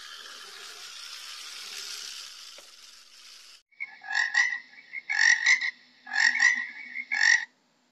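A frog croaking: four short croaks about a second apart, starting about halfway in, after a faint steady hiss.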